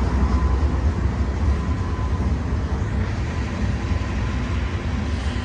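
Norfolk Southern freight train rolling past: a steady low rumble with an even wash of wheel and rail noise.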